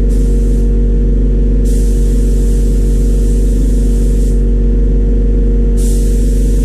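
Paint spray gun hissing in bursts as its trigger is pulled: a short burst at the start, a longer one of nearly three seconds, and another beginning near the end. A loud, steady machine hum runs underneath throughout.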